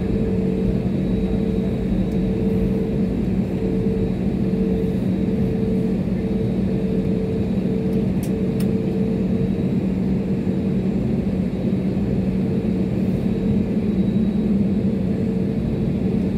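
Steady cabin noise of an Airbus A320-family airliner taxiing, its jet engines at idle. A low steady hum sits under a higher tone that pulses on and off, with two faint clicks about halfway through.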